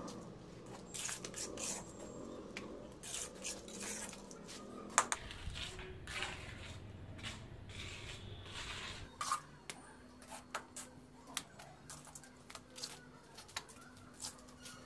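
Irregular clicks, taps and short scrapes of hand work on granite pieces and tools.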